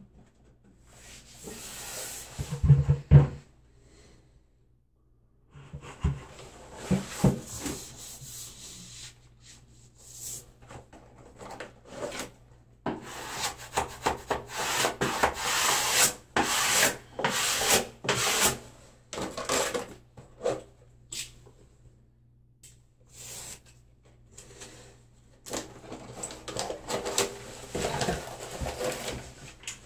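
Wallpaper being hung and smoothed onto a pasted wall: irregular rubbing and brushing strokes, thickest in the middle stretch, with a single knock about three seconds in.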